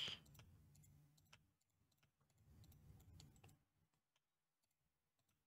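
Near silence with a few faint, scattered clicks of a computer mouse and keyboard.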